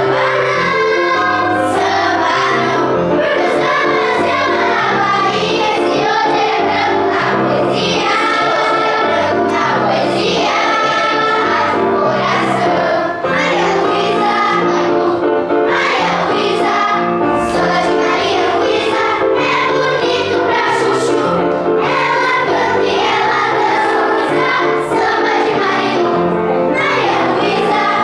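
Children's choir singing a samba song together over instrumental accompaniment with a steady percussive beat.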